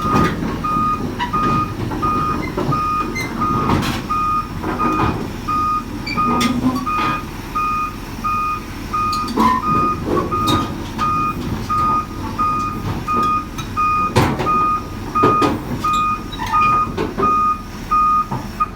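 Volvo excavator's travel alarm beeping steadily, a little under two beeps a second, as the machine tracks up onto a trailer. Under it runs the engine, with occasional sharp clanks from the tracks and steel.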